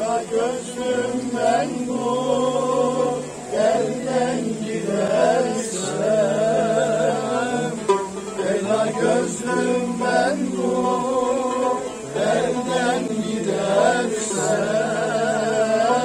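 Music: a singing voice with wavering ornaments on long held notes over instrumental accompaniment.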